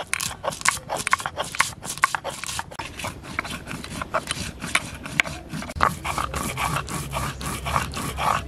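Stone roller of a shil-nora grinding stone being worked back and forth over the flat stone slab, making quick, rhythmic scraping knocks, several a second. Dried red chillies, black pepper and whole spices are being ground wet into a paste.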